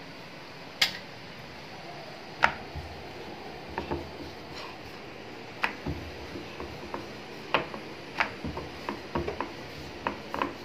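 Wooden rolling pin knocking and clicking against a round wooden board while kachori dough is rolled out, in scattered irregular taps.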